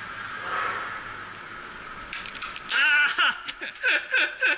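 A gas-blowback airsoft pistol clicking several times in quick succession about two seconds in, then a man's voice.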